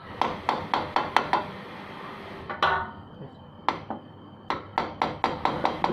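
Sharp metallic taps from hand tools on metal motorcycle parts, in two quick runs of about four a second with a gap of a few single taps between.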